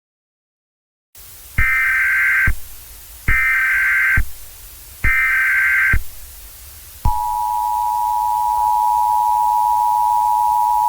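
Emergency Alert System header: after a second of silence, three equal bursts of warbling data tones, each about a second long. Then, from about seven seconds in, the steady EAS two-tone attention signal, which marks the start of a broadcast emergency warning.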